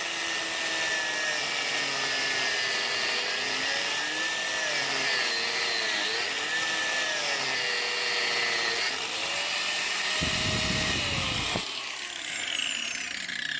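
High-speed power tool running continuously, its pitch dipping and recovering several times as it is loaded. About ten seconds in there is a short low rumble, and near the end it is switched off and winds down in a long falling whine.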